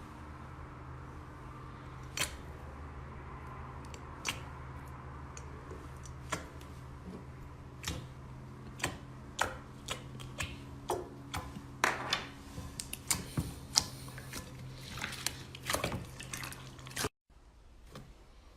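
Slime being pressed and worked by hand, giving off irregular sticky clicks and pops over a steady low hum; it breaks off briefly near the end.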